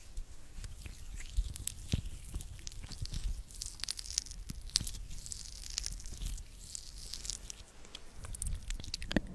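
Sticky, wet mouth sounds: a dense run of quick, irregular clicks and crackles, with soft hissing through the middle stretch.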